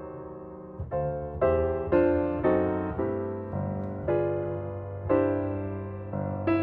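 Background music on piano or keyboard: chords struck one after another, each ringing out and fading before the next.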